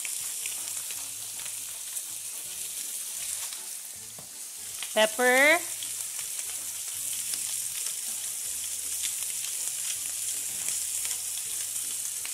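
Chicken breast fillets frying in melted butter and olive oil in a nonstick frying pan, with a steady high sizzle.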